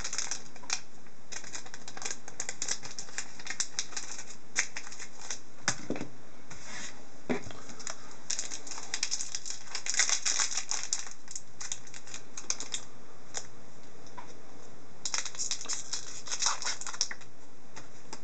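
Trading cards being handled and sorted by hand: an irregular run of light clicks and snaps with crisp rustling, busiest in the middle and again near the end.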